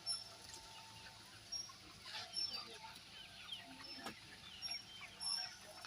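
Flock of laying hens clucking and calling, many short calls overlapping, with a single sharp click about four seconds in.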